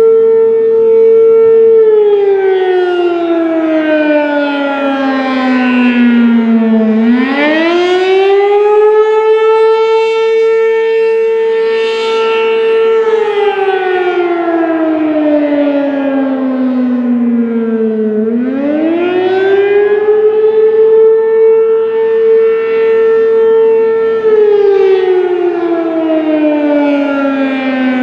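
American Signal Corporation RM-127 outdoor warning siren sounding a wail during a scheduled test. The pitch holds high for a few seconds, falls slowly over about five seconds, then climbs back quickly, about every eleven seconds.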